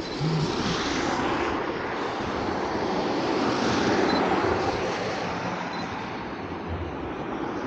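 A vehicle driving past on a snowy road: tyre noise swelling to a peak about four seconds in, then fading.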